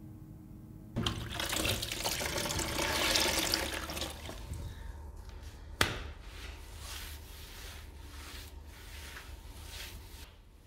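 Water splashing and running for about three seconds, a sharp knock about halfway through, then a wet strip mop swished back and forth across a hard floor in short, regular strokes about twice a second.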